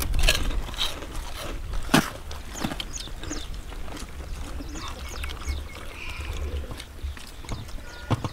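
People eating by hand, crunching crispy fried vathal (sun-dried fryums); a few sharp crunches stand out, about two seconds in and near the end, over a low rumble of wind on the microphone.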